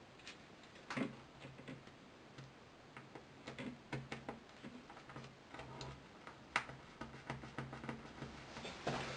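Irregular small clicks and taps of a smartphone and its parts being handled and pressed together during a screen repair, with a faint low hum coming and going underneath.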